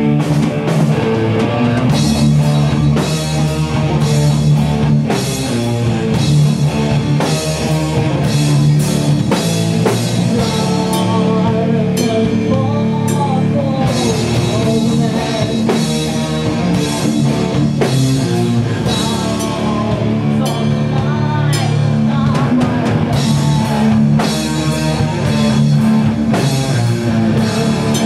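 Live doom metal band playing: heavily distorted electric guitars holding slow, low chords over a drum kit, with a singer's voice wavering over the top partway through.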